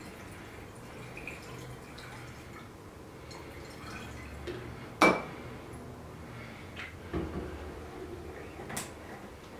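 Liquid solvent poured from a plastic jug through a plastic funnel into a glass conical flask, a faint steady pouring. A single sharp knock about five seconds in is the loudest sound, followed by a few lighter knocks near the end.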